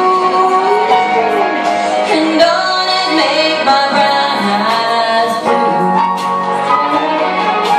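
A woman singing a slow country-pop ballad into a handheld microphone over instrumental accompaniment, her voice holding and bending long notes.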